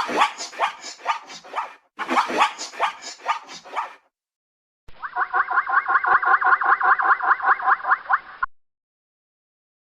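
Zebra whinny sound effect: three runs of rapid, repeated calls at about six or seven a second, the third run more tonal and the longest, about three and a half seconds.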